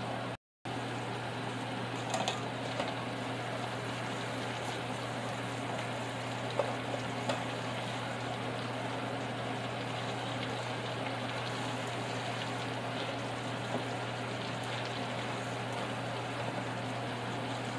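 Metal tongs tossing shredded cabbage in a frying pan: a few light clicks, most of them in the first half, over a steady hiss and low hum.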